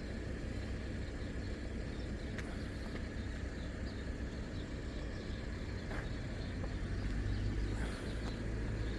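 A steady low rumble that grows louder about seven seconds in, with faint short high chirps scattered over it.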